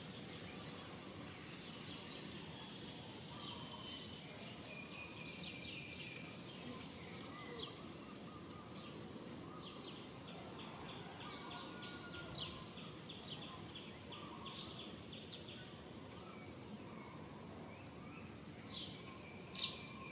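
Outdoor ambience: a steady background hiss with many short, high chirps and calls scattered through it, a quick run of them in the middle and two louder ones near the end.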